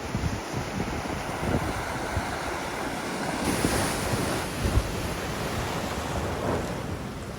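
Wind buffeting the microphone: a steady rushing noise with irregular low rumbling gusts.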